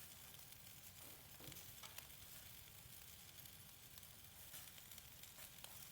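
Faint sizzling of shashlik meat grilling over wood coals, with a few soft crackles and pops scattered through it.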